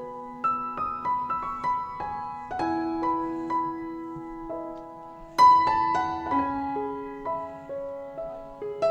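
Background piano music: single notes and chords struck one after another, each ringing and fading, with a louder chord about five and a half seconds in.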